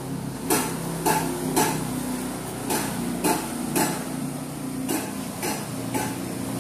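Hammer blows on metal from gong-making: sharp strikes at an uneven pace, roughly one to two a second, over a steady low hum.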